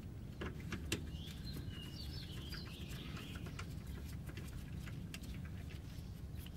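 Hand ratchet clicking in short bursts as the 10 mm nylon nuts of an underbody panel are undone, over a steady low rumble. A bird chirps briefly about two seconds in.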